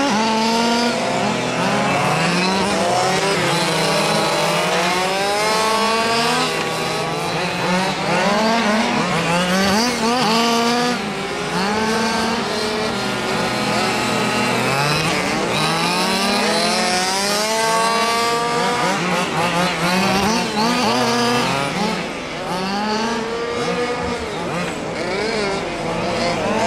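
Small two-stroke engines of several gas-powered 1/5-scale RC buggies revving up and down as they are driven hard, their pitches rising and falling over and over and overlapping one another.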